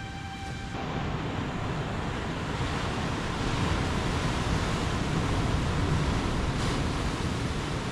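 Ocean surf breaking and washing over a rocky shore, a steady rush that builds over the first few seconds and eases a little near the end, with wind on the microphone.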